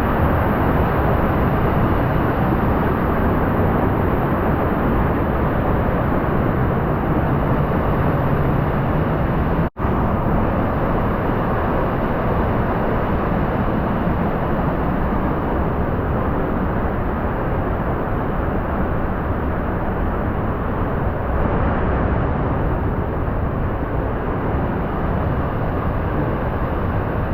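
Sgwd yr Eira waterfall in full spate after heavy rain: a loud, steady, unbroken rush of falling water, with a sudden brief dropout about ten seconds in.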